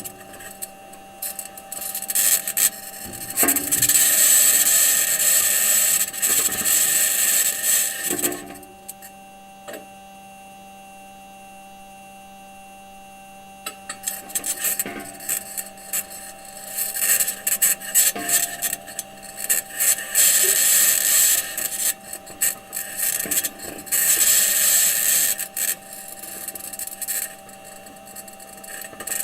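Mars rover's metal wheels grinding and scraping over rocky ground in long loud stretches, with scattered knocks where the wheels bump over rocks, and a quieter lull about nine to fourteen seconds in. A steady hum sits under the grinding throughout.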